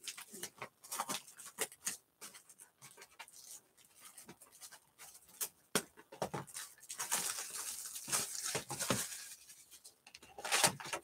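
Handling of sealed cardboard trading-card boxes: light knocks and scrapes against the table. In the second half there is a spell of crinkling, tearing plastic as the shrink wrap comes off one box.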